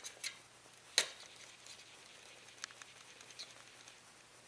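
Cleaning rod being worked through a Remington Versamax shotgun barrel: one sharp knock about a second in, then a few faint clicks.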